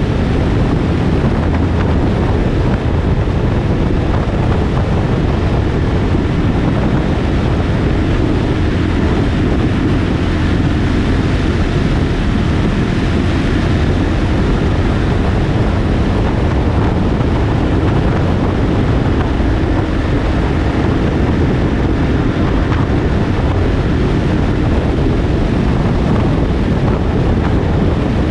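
Motorcycle running steadily at speed, its engine drone mixed with heavy wind rush on the microphone.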